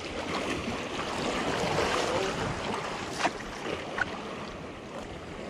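Sea water washing and splashing against jetty rocks, with wind on the microphone; two short clicks about three and four seconds in.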